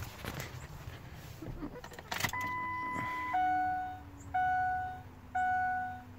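Diesel pickup truck's dashboard warning chime as the key is switched on: one steady tone lasting about a second, then a chime repeating about once a second. Keys jangle and there are small clicks just before it.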